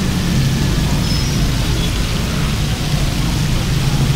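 Steady low engine rumble of road traffic, with an even hiss above it.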